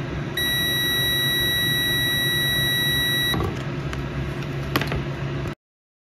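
Kaiweets digital multimeter's continuity beeper giving one steady, high beep for about three seconds while its probes bridge the heat press's thermal cutoff switch: the switch is closed and is not stopping the unit from heating. A sharp click follows near the end.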